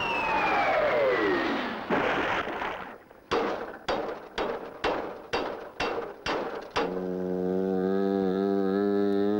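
Cartoon sound effects: a whistle sliding steeply down in pitch over a rushing noise. Then about eight sharp strokes, roughly two a second, each dying away. Then, about seven seconds in, a steady buzzing, humming tone starts and wavers once.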